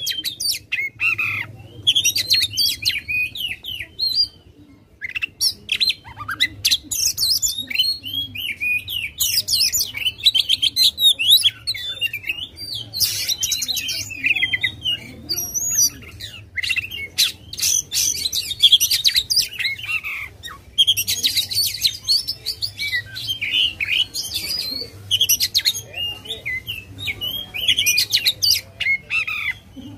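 Oriental magpie-robin (kacer) singing an aggressive, rapid song of varied chirps, whistles and trills, delivered in phrases of a few seconds with short pauses between.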